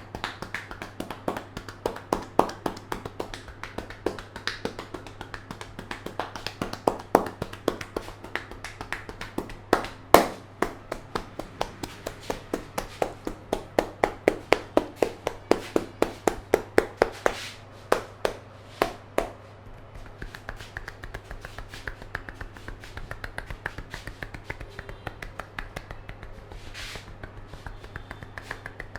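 Barber's hands tapping and snapping on a customer's head in an Indian head massage: a long, rapid run of sharp taps, a few a second, some louder than others, with a loud slap about ten seconds in.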